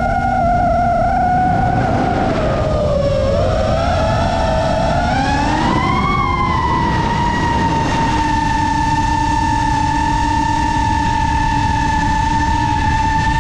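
FPV quadcopter motors whining over the rush of prop wash and wind. The pitch dips and rises with the throttle over the first half, then settles into a steady whine.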